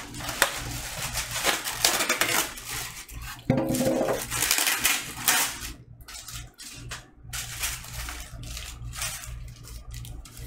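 Styrofoam packing and plastic wrap being handled while unpacking a turntable: rustling, creaking and knocks, busiest over the first six seconds, then lighter crinkling and taps.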